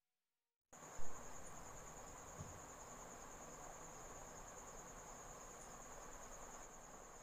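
A single thump about a second in as a 3.5 mm audio plug is pushed into a phone's headphone socket, then faint hiss with a steady high-pitched whine.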